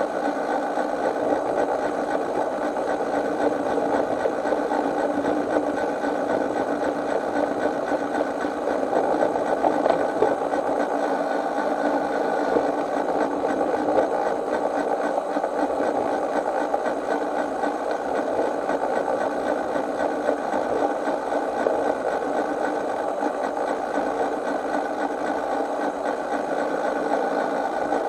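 Miniature railway train running steadily along its track: a continuous mechanical running sound of its drive and wheels on the rails, with a constant hum that holds one pitch throughout.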